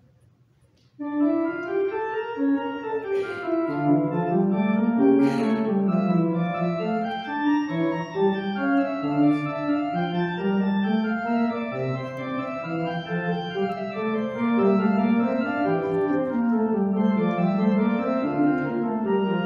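Organ music starts about a second in: a slow offertory piece of held chords with a melody moving above them.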